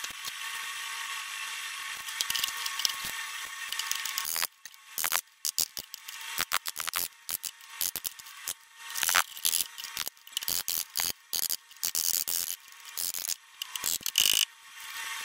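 A steady high hiss for about the first four seconds. It gives way to a long run of sharp, irregular metallic taps and knocks: a hammer driving a chisel bar into the steel of a car's door sill, where the section has been cut out.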